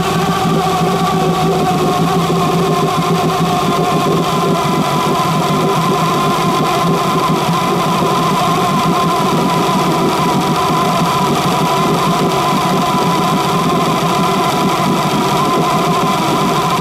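1976 Mercury inline-six two-stroke outboard running steadily on a test stand with its water pickup above the water, so no cooling water is pumped. This is a test run to confirm a suspected water-jacket leak letting water into the cylinders.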